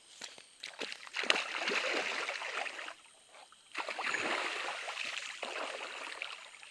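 Water splashing as a person bathes in a shallow marsh, in two spells with a short pause about three seconds in.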